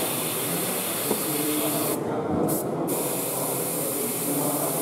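Airbrush spraying paint: a steady hiss of air and paint from the nozzle that cuts out twice, briefly, about two seconds in, as the trigger is let go and pressed again.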